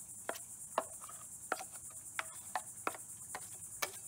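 A 4-inch drywall knife scraping and knocking against a metal mud pan while mixing thick quick-setting joint compound: about eight short, sharp strokes at an uneven pace of roughly two a second. Under it runs a steady high insect trill.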